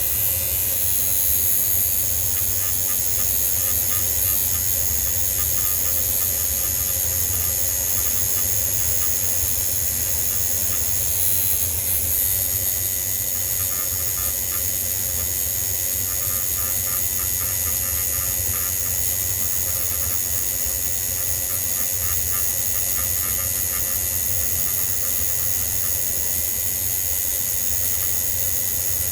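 A steady machine hum with a high, even whine, holding the same level throughout.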